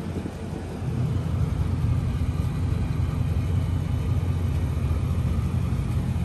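2019 Dodge Charger Scat Pack's 392 (6.4-litre) HEMI V8 running at low revs as the car creeps forward; its low, steady engine note gets louder about a second in and then holds.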